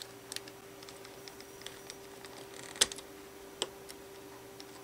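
Faint small plastic clicks and ticks as fingertips work a laptop key's plastic retainer clip onto the keyboard base's small metal hooks. The two sharpest clicks come just before 3 s in and about a second later.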